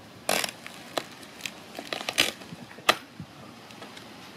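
Handling noise from a shirt and duct tape being worked onto a foam figure: about five short crinkling, rustling bursts, the sharpest near three seconds in.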